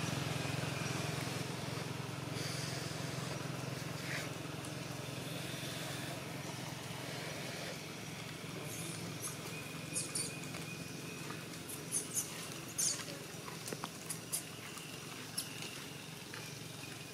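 Scattered short, sharp crackles and rustles over a steady low hum, bunched in the second half.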